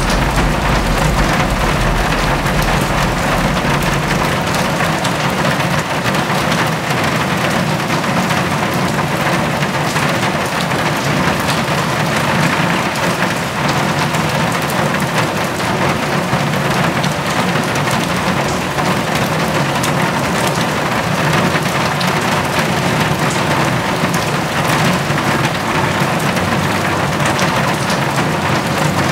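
Steady rain, a dense patter of many drops hitting hard surfaces. A low rumble underneath fades out during the first few seconds.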